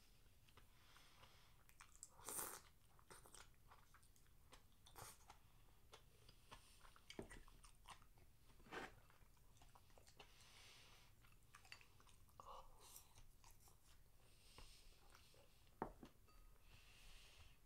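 Faint close-up eating sounds: a person chewing food, with a few short clicks and knocks scattered through.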